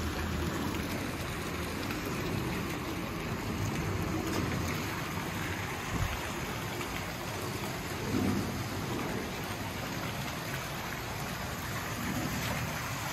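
Steady splashing of water from the pool's arching deck jets and sheer waterfall falling into the pool.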